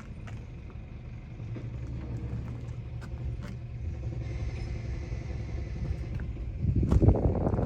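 Takeuchi TL126 compact track loader's diesel engine running with a steady low hum that grows louder after a second or two, then a louder, rougher surge near the end.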